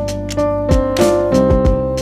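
Background music: piano-led instrumental with a steady bass and a drum beat.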